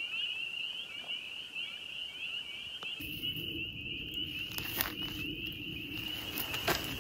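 Chorus of spring peepers: many short, rising peeps overlapping into a steady high-pitched band. About three seconds in, the background becomes noisier, and a couple of sharp knocks come later.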